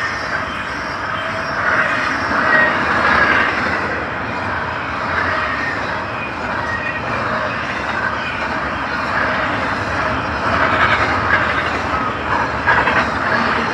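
Double-stack intermodal container train passing fast and close: a loud, steady rolling noise of steel railcar wheels on the rails.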